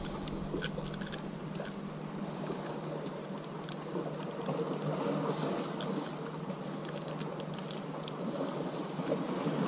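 Steady wind and sea noise on the microphone, with small scattered metallic clicks of fishing pliers working a lure's split ring and broken treble hook free.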